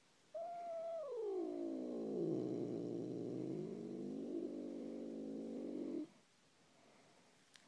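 A domestic cat's long, angry yowl. It starts high, slides down in the first second into a low, drawn-out yowl held for about five seconds, then stops abruptly.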